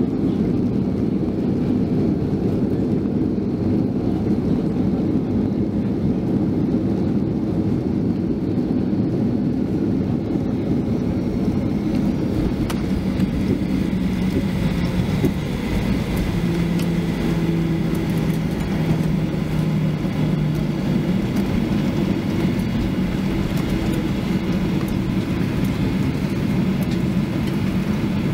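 Cabin noise inside a Boeing 737-800 just after landing: a steady low rumble from its CFM56 jet engines and the wheels rolling on the pavement as it slows and taxis. From about halfway, a few steady low engine tones stand out over the rumble.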